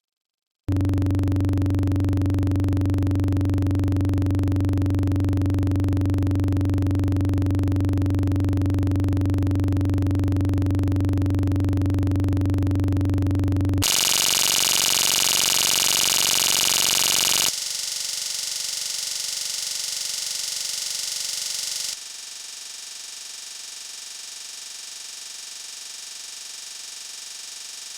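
Electronically generated sound in steady blocks: a loud low hum, then a bright high-pitched hiss about 14 seconds in, then quieter noise that steps down suddenly twice.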